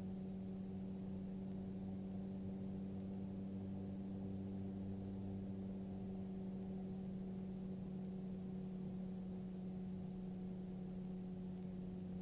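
Magni M24 gyrocopter's engine and propeller droning steadily in cruise, heard from inside the enclosed cockpit: a constant, muffled hum at one pitch, with no change in engine speed.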